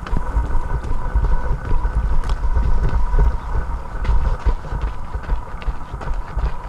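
Wind buffeting the camera microphone of a runner moving along a dirt trail: a heavy, uneven low rumble, with a faint steady high whine underneath.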